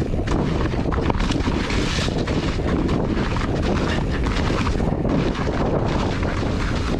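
Wind rushing over the camera microphone on a fast mountain-bike descent, over a steady low rumble and a run of quick clicks and knocks from the bike rolling over rough trail.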